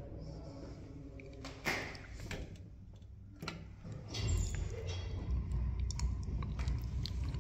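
Clicks and a single loud clunk about a second and a half in, then from about four seconds in a low steady rumble of an IFMA traction lift car travelling in its shaft, heard at the landing door.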